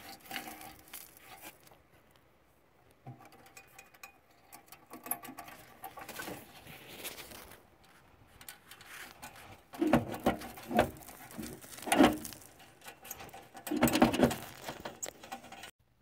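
Fingers rubbing and scraping on a rusty exhaust pipe, with close handling noise. Several louder knocks come a little past halfway and again near the end, and the sound cuts off just before the end.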